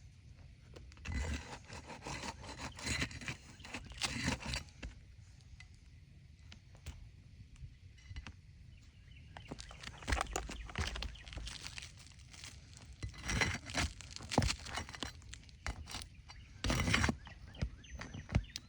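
Irregular scraping and rasping as roof shingles are pried loose and unsealed, in several bursts with pauses between.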